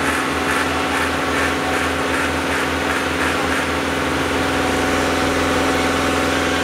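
Motor of a building-material lifting machine running steadily, with a regular clatter about twice a second through the first half.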